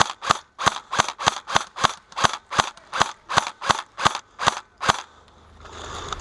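Airsoft rifle firing a rapid string of single shots, about three a second, each a sharp crack. The firing stops about five seconds in.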